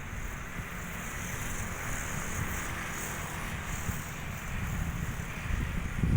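Small 50cc mini trail bike engine running, heard mostly as a rumble under wind buffeting the microphone, with a brief louder gust near the end.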